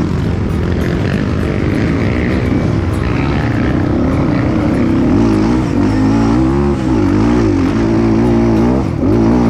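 Off-road dirt bike engine heard close up while it is ridden, revving up and down with the throttle; its pitch swings up and down several times in the second half.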